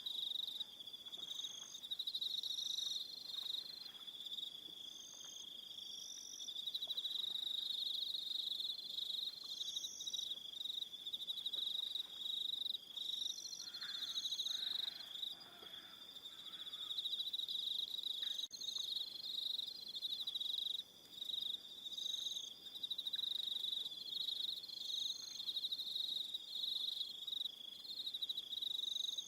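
Evening chorus of crickets: a continuous high-pitched trill, with shorter, higher chirps repeating every second or two.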